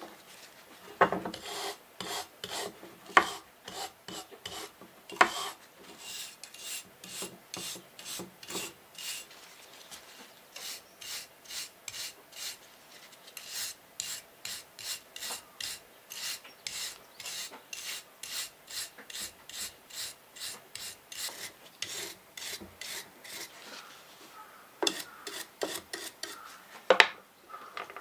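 A small hand brush scrubbing a tarnished metal plate from an old sewing machine: quick back-and-forth scraping strokes, about two a second. A few louder knocks come near the start and near the end.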